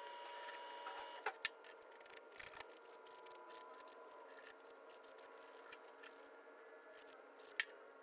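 Faint scraping and clicking of a hand file and fingers working the cut edge of a short aluminum tube section, deburring it, with two sharper clicks, one about a second and a half in and one near the end, over a faint steady hum.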